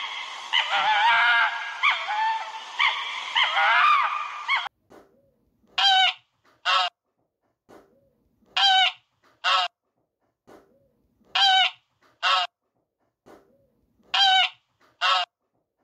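For about the first four and a half seconds, a red fox gives dense, high yelping and whining calls. They stop, and a goose starts honking in pairs, two honks close together about every three seconds, four pairs in all.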